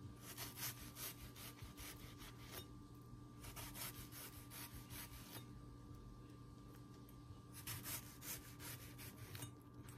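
Chef's knife cutting down through a red onion and tapping a wooden cutting board: faint, quick cuts in three runs with short pauses between.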